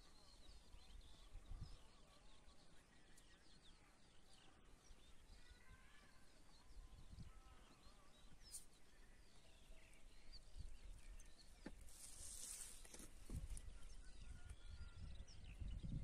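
Near silence: faint wind rumble on the microphone, growing toward the end, with scattered faint high chirps of distant birds. A brief soft hiss comes about twelve seconds in.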